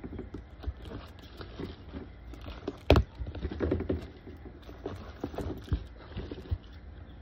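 Plastic slime containers being handled and set down in a clear plastic storage bin: irregular knocks and clatter, with one loud knock about three seconds in.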